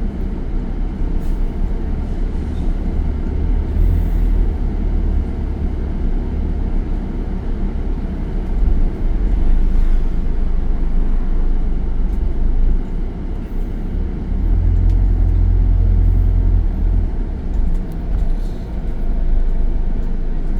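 Alexander Dennis Enviro 400H hybrid double-decker bus running, with its electric cooling fan going: a steady whir over a low rumble. The rumble swells about nine seconds in and again for a few seconds past the middle.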